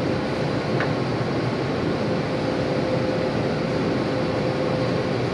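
Steady hiss and hum of shop ventilation machinery, with a constant mid-pitched tone running through it and a faint tick about a second in.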